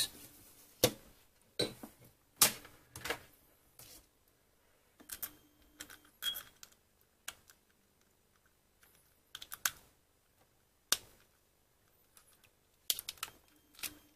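Scattered sharp clicks and taps of hands on hard plastic, a dozen or so at irregular intervals, some in quick little clusters.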